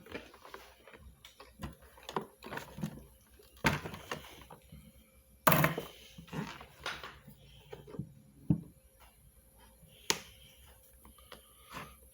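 Irregular clicks and knocks of plastic vacuum-cleaner parts being handled and fitted by hand, with two louder knocks a little under four seconds in and about five and a half seconds in.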